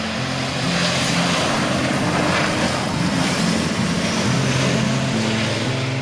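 Jet engine noise of a Boeing 737 on its landing roll: a loud, broad rushing sound that swells about a second in and holds steady. Background music with a low bass line plays under it.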